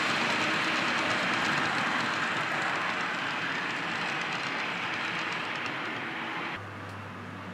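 H0-scale model freight wagons rolling over the model track: a steady rushing rattle of small metal wheels on rails that slowly fades as the train runs off. About six and a half seconds in it cuts off abruptly, leaving a quieter low hum.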